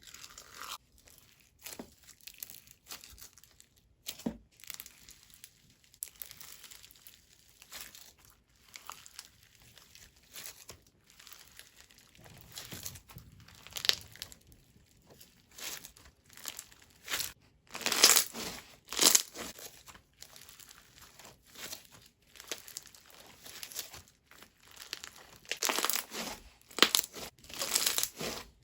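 Crunchy slime with small foam beads and soap beads being squeezed and pressed by hand, giving irregular crackling and crunching, louder in clusters in places.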